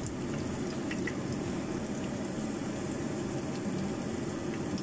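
Banana turon frying in shallow oil in a grill pan: a steady sizzle with a few small pops of oil.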